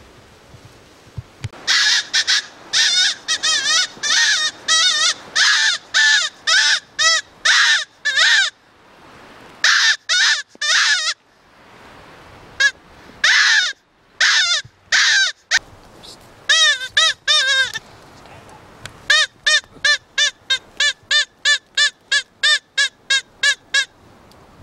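Hand-blown 'super squawker' predator call sounded in runs of loud, harsh squawks with short pauses between runs; the last run is fast, about four squawks a second. It is calling to draw foxes in.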